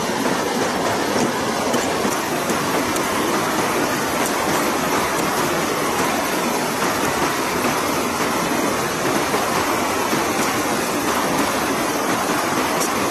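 River water rushing steadily over rocky rapids.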